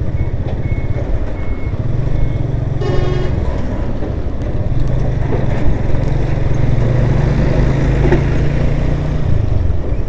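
Motorcycle engine running steadily while the bike is ridden, its low hum swelling and easing a little with the throttle.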